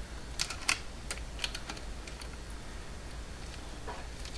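Light, scattered clicks and taps of small plastic wire connectors and leads being handled, a few in quick succession in the first two seconds and one more near the end.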